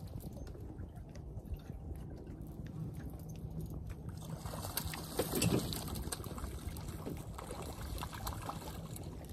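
Water splashing and sloshing at the side of the boat as a small catfish is brought up by hand, loudest about five and a half seconds in. A steady low hum from the boat's outboard motor runs underneath.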